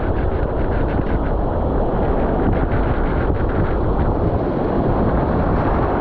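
Steady, loud rush of wind buffeting the microphone, with ocean surf breaking against rocks underneath.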